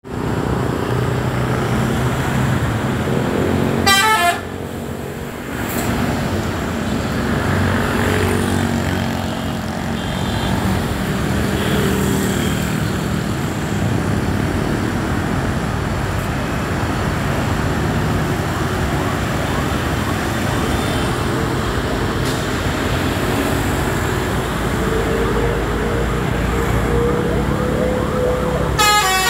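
Bus telolet horn, a multi-note musical air horn, giving a short burst of stepped rising notes about four seconds in, then starting another melody right at the end. In between, bus engines and road traffic run steadily.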